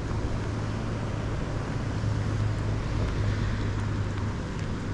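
Rain falling on open water with gusting wind on the microphone: a steady hiss over an even low rumble.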